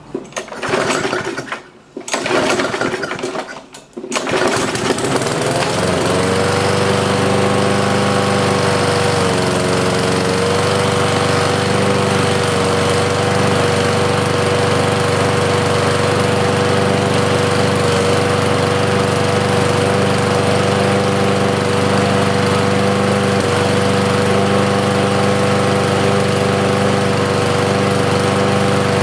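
Briggs & Stratton petrol lawnmower engine pull-started with a few pulls, catching about four seconds in on starting fluid tipped into it, then running steadily at full speed after standing unused for a long time.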